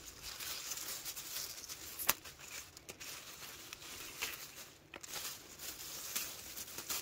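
Luffa vines and leaves rustling as they are handled during picking, with a few sharp clicks, the loudest about two seconds in.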